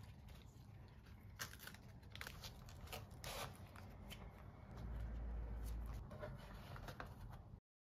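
Fresh lettuce leaves rustling and crackling as they are handled and laid on a flatbread, then softer crinkling as the wrap is rolled up. A low rumble lasts about a second midway, and the sound cuts off suddenly shortly before the end.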